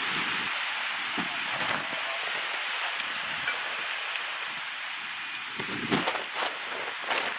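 Steady hiss of rain and wind, with a few short knocks near the end.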